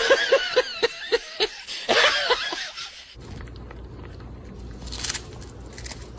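A person laughing in rapid high-pitched pulses, about four a second, cut off about three seconds in; after that a steady low hum with faint clicks and a brief hiss.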